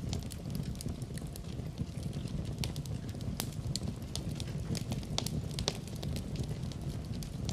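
Wood fire burning in a fireplace: a steady low rumble of flames with irregular sharp crackles and pops, several louder snaps scattered throughout.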